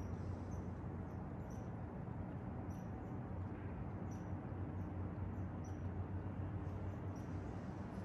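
Forest ambience: short, high chirps from a small creature, repeating irregularly every second or so over a steady low rush.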